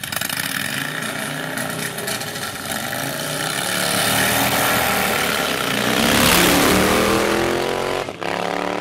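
Café racer motorcycle engine revved at the start line, then run hard as the bike launches and accelerates away. It is loudest about six seconds in, and there is a sudden break shortly before the end.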